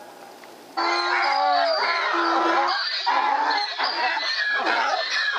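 A pack of coyotes yipping and howling together in a loud, chattering chorus of falling and breaking cries. It cuts in suddenly about a second in.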